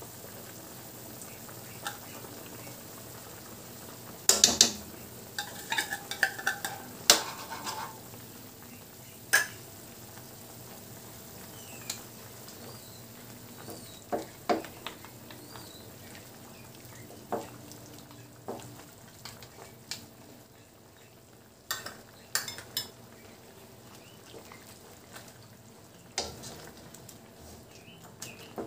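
Pork simmering in broth in an aluminium wok, a steady hiss under scattered clicks and scrapes: a spoon scraping liver spread out of its tin can, then a wooden spatula stirring against the pan.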